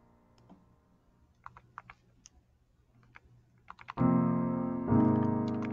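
Faint, scattered clicks of a TI-Nspire CX calculator's keypad as numbers are keyed in. About four seconds in, loud piano chords start suddenly, then a second chord about a second later, each fading out.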